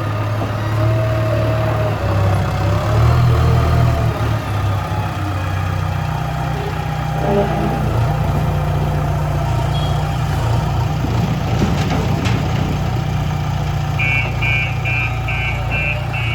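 JCB 3DX backhoe loader's diesel engine running, its pitch shifting as the revs change. A rapid, evenly repeated beeping comes in near the end.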